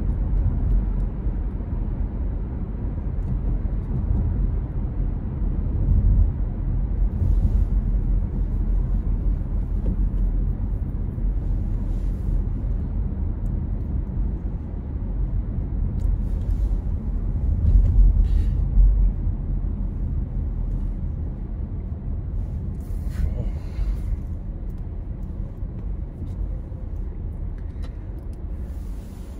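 Low, steady road and engine rumble of a moving car heard inside its cabin, with a few faint brief ticks or rustles.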